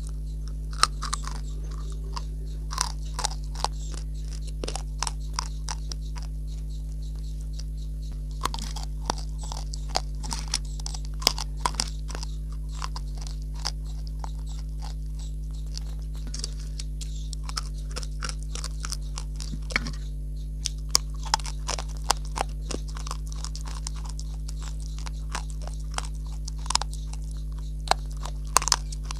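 Close-up crunching and chewing of dry, chalky clay chunks (multani mitti), with sharp, crisp bites coming every second or so over a steady low hum.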